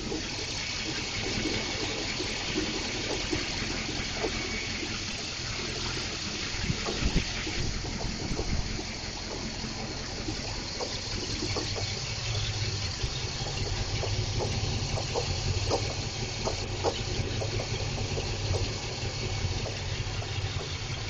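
Fuel-injected PCM 6.0L V-8 inboard in a 1955 Chris-Craft Continental running steadily amid a constant rush of water. Its low hum grows stronger about twelve seconds in, with a few light knocks here and there.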